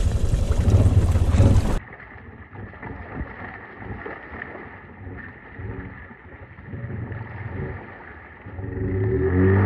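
Honda 520 ATV's single-cylinder engine running as it wades through deep creek water, with water churning around it. The sound is loud and close for the first two seconds, then drops to a faint engine under a steady high hum. Near the end the engine comes up louder again with splashing.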